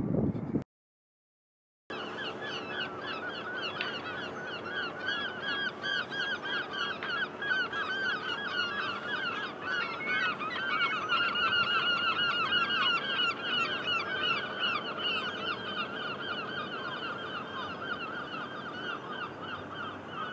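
A large flock of birds calling continuously in a dense chorus of rapid, overlapping short calls, starting after a brief silence about two seconds in.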